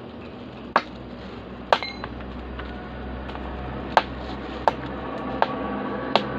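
A metal tool knocking against rock in a crevice: about six sharp clinks at uneven intervals, some ringing briefly.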